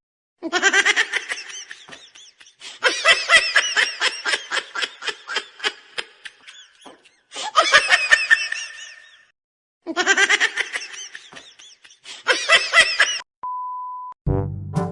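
High-pitched laughter in five separate stretches of quick pulses, each starting and stopping abruptly with silent gaps between them. Near the end comes a short steady beep, then brass music starts.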